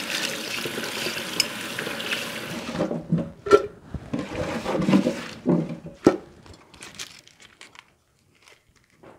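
Kitchen tap running full onto carrots being rinsed in a stainless steel sink, shut off about three seconds in. Then comes a run of knocks and clatter as peelings are scooped out of the sink, fading to faint handling sounds.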